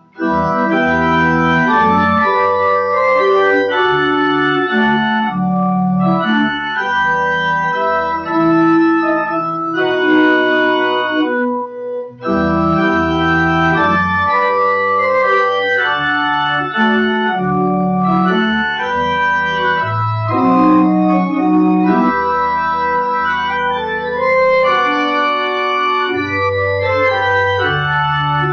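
Church pipe organ playing held chords and a melody, the chords changing about every second, with a short break between phrases about twelve seconds in.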